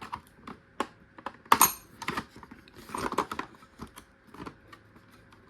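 Hand tools being handled and set down: irregular clicks and taps, with a sharp metallic clink about one and a half seconds in and a short clatter around three seconds.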